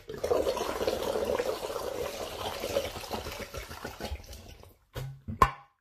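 Water running or splashing, a dense rushing sound that fades out toward the end, followed by a brief low hum and a sharp click.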